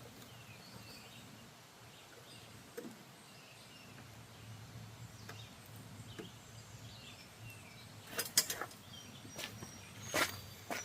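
Quiet outdoor background with faint bird chirps. Then a quick cluster of sharp clicks and knocks about eight seconds in, and another knock near the end, from hands-on work on a riding mower's deck.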